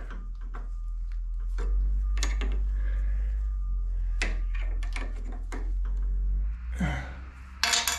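Small metal clicks and light knocks of hands working a drill press chuck, tightening a tap in it, with a louder clatter near the end. A steady low hum runs under them and stops about six and a half seconds in.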